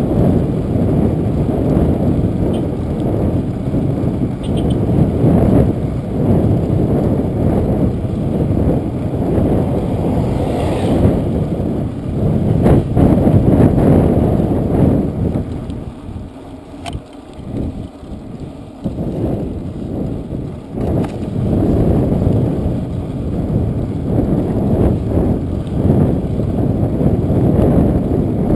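Wind rumbling over the microphone of a bicycle-mounted camera while riding on a paved road, with tyre noise underneath. The rumble is steady and loud, easing for a few seconds about halfway through.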